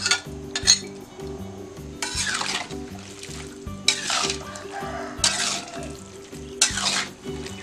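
Food sizzling in a pan, stirred in about five separate scraping sweeps, over background music with a steady repeating beat.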